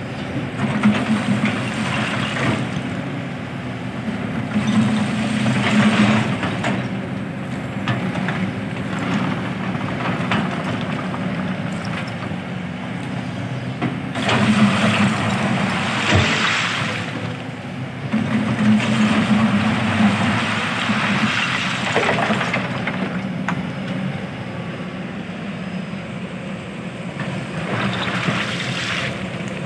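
Kobelco SK200 hydraulic excavator's diesel engine running, swelling several times as the hydraulics work under load. Loose crushed stone scrapes and clatters in the bucket in several spells as it digs, with a single sharp knock about two-thirds of the way through.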